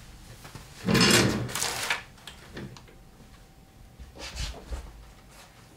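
Handling noise at a workbench: a loud rustling scrape lasting about a second near the start, then a few softer knocks and a low thump. A faint steady whine comes in about three seconds in.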